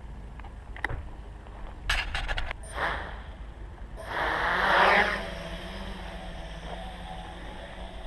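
Quadcopter electric motors and propellers whirring in flight over a steady low rumble of wind noise. A quick run of clicks comes about two seconds in, and a loud surge of propeller noise about four seconds in, after which the motor hum carries on steadily.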